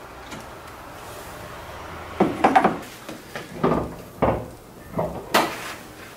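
A run of clunks and clatters, about six, beginning about two seconds in, from jumper cables and the car being handled to set up a jump start.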